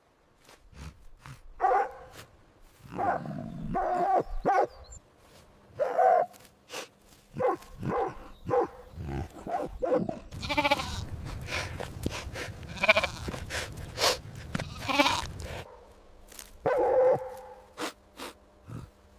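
A string of short recorded animal calls, mostly sheep bleating with a wavering pitch, and a denser run of harsher, noisier cries in the middle.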